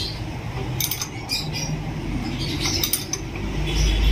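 Ring wrench clinking and clicking against the nozzle retaining nut of a diesel injector as it is tightened in a bench vise: a few short metallic clicks, over a steady low hum.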